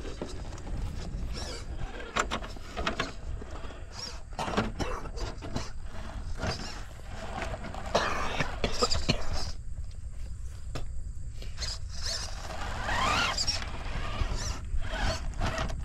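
RC rock crawler's Hobbywing Fusion SE brushless motor and drivetrain whining as the truck crawls, with scattered clicks and knocks. Toward the end the whine rises sharply in pitch as the throttle comes on.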